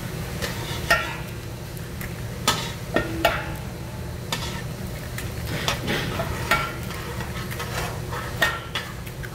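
A metal scraper scrapes and taps on a flat-top steel griddle while rolled egg omelettes are folded and pushed along, in a dozen or so short, sharp strokes. A steady low hum runs underneath.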